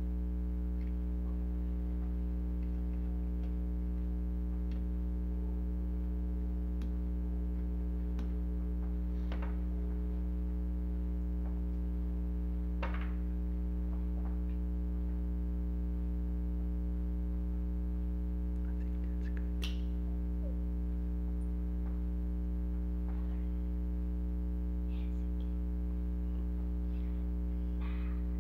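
Steady low electrical mains hum with a buzz of overtones above it, with a few faint, scattered clicks.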